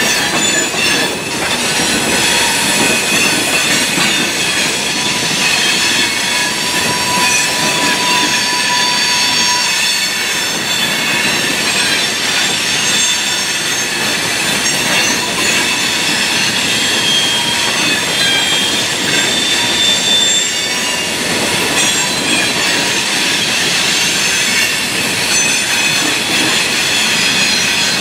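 A freight train's cars rolling past at steady speed, their wheels squealing against the rails in several high, steady tones over the rumble of wheels on track.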